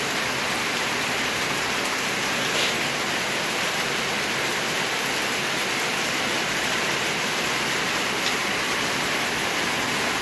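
Heavy rain falling steadily on garden plants, puddles and muddy ground: an even, unbroken hiss.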